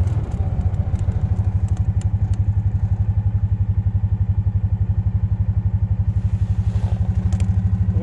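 Kubota RTV utility vehicle's engine running steadily as it drives, a fast, even low pulsing, with a few light clicks and rattles in the first two seconds.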